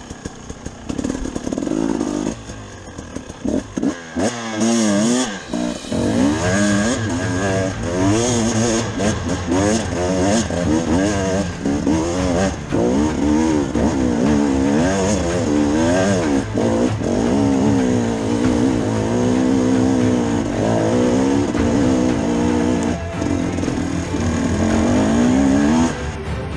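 KTM EXC enduro motorcycle engine revving up and down over and over, the pitch climbing and dropping about once a second as the throttle is worked. It is quieter for the first few seconds, then louder.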